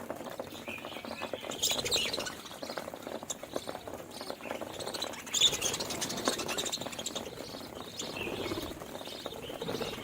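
Budgerigars chirping and warbling continuously, a busy mix of short chirps and clicks, with a louder chirp about five and a half seconds in.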